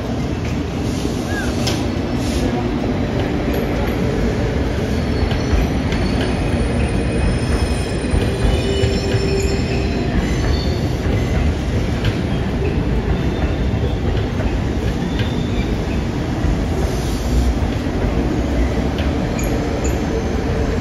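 Train running on the tracks: a steady rumble, with short, faint high-pitched wheel squeals in the middle.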